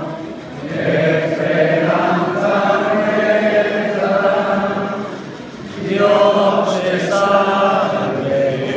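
A crowd singing a religious hymn together in unison, in long held phrases, with a short break about five and a half seconds in before the singing swells again.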